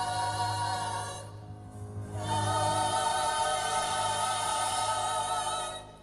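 Background music: a choir singing long held chords, with a short break about a second in, then a second held chord that fades out near the end.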